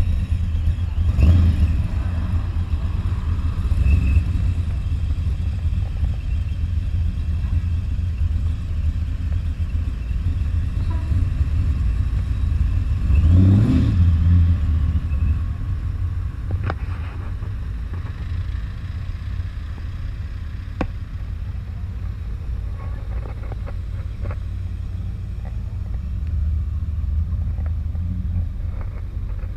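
Classic cars driving slowly past one after another, their engines running with a low rumble. The loudest pass comes about 13 seconds in, as a blue C2 Corvette Sting Ray convertible rolls by. The rumble eases somewhat later as ordinary modern cars follow.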